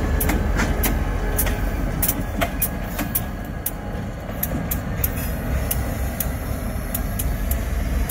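Union Pacific freight train rolling slowly: a steady low rumble with frequent sharp, irregular clicks of the wheels on the rails.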